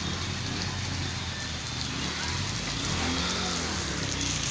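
A motor vehicle's engine running steadily under an even hiss of rain and wet road.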